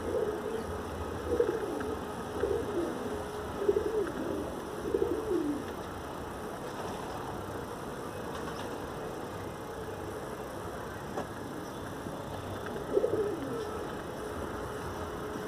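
A dove cooing: a run of about five low coos in the first six seconds, then one more near the end.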